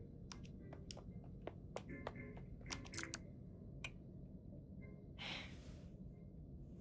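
Faint, nearly quiet audio: a scatter of light clicks through the first four seconds, then a soft breath-like hiss about five seconds in.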